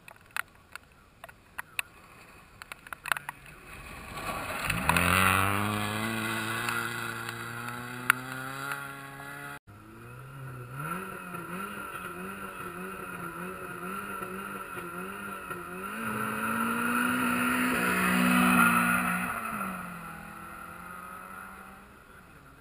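A rally car's engine revving hard as it climbs the gravel stage, its pitch rising. After a sudden break, another rally car passes with its engine note wavering rapidly up and down. That note grows loud, then falls and fades.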